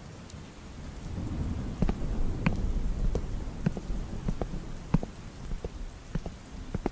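Rain ambience of a thunderstorm: a low thunder rumble swells about a second in and slowly fades, under steady rain hiss with scattered drops ticking.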